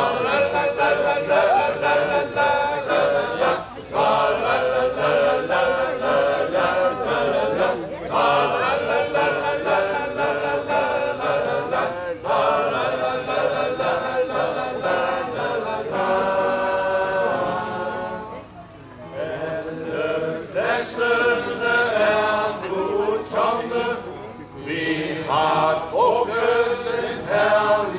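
Men's choir singing a Danish song with keyboard accompaniment, in sung phrases a few seconds long with brief pauses for breath between them.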